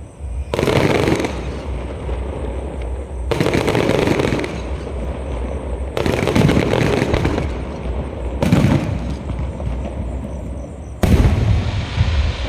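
Aerial fireworks shells bursting overhead: five loud booms, one about every two and a half seconds, each with a short noisy spread after the bang.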